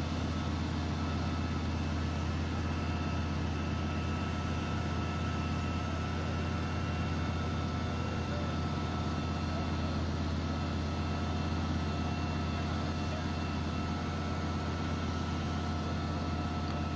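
Fire engine's engine running steadily to drive its pump, a constant low drone over a steady hiss.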